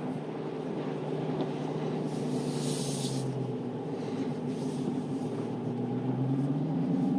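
Dodge Challenger SRT Hellcat Redeye's supercharged 6.2-litre HEMI V8 running steadily while driving on a wet road, its pitch rising near the end as it picks up revs. A brief hiss comes about two seconds in.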